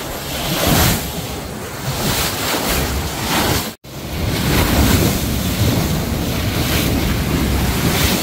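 Wind buffeting the microphone over the rush of sea water on a boat at sea, a loud steady noise with a brief break about four seconds in.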